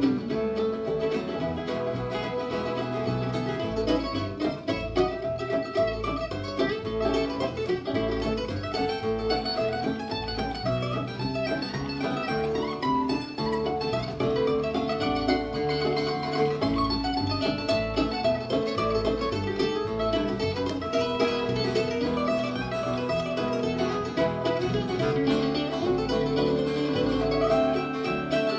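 Bluegrass band playing an instrumental break: picked acoustic string instruments over a steady bass beat, with no singing.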